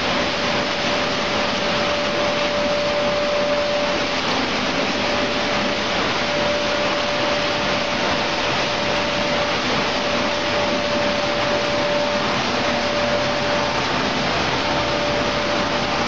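Steady running noise of raisin processing machinery, conveyors and sorting equipment, a constant hiss-like din with a faint steady whine through it.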